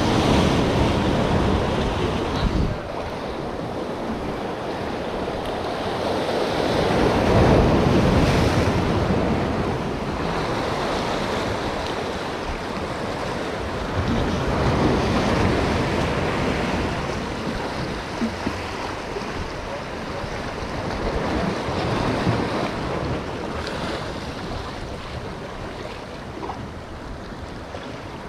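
Sea waves washing and breaking, swelling and fading every several seconds, with wind buffeting the microphone.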